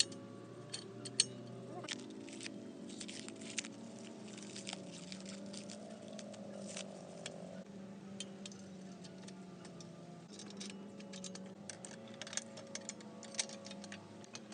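Soft background music of held tones, with irregular sharp clicks and light metallic taps over it, like small parts and hand tools being handled during the minibike restoration. The loudest click comes a little over a second in, and another strong one near the end.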